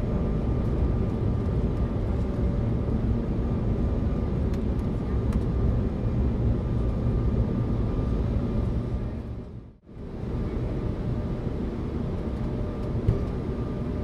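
Steady airliner cabin noise, a low rumble of engines and air. It fades out and back in briefly about ten seconds in.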